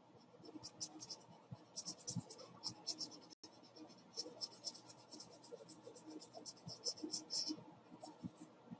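Marker scratching across sketch-pad paper in many quick, short strokes, as lines are drawn and shaded. The sound cuts out for an instant about a third of the way through.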